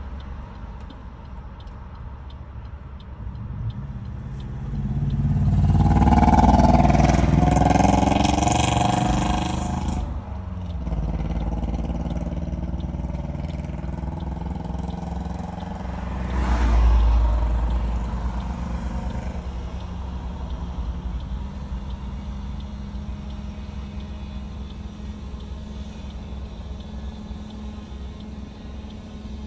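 Road traffic heard from inside a stationary car. About five seconds in, a vehicle goes past loud, its engine pitch rising and falling over several seconds, and a second, shorter pass follows near the middle. Otherwise there is a steady low rumble and hum.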